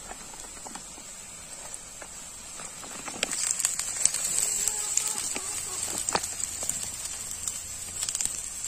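Hot oil sizzling in an iron wok over a wood fire. About three seconds in, as chopped vegetables are dropped in, the sizzle gets louder and crackles and spits.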